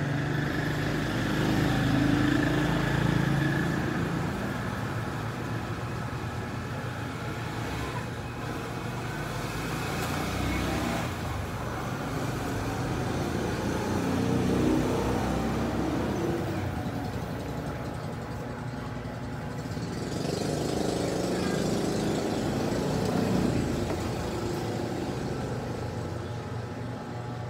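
Road traffic going by: a steady rumble of vehicles that swells and fades several times.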